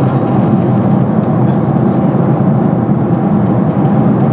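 Steady cabin noise inside a Boeing 767-400ER in flight: the even, low rumble of the jet engines and airflow past the fuselage.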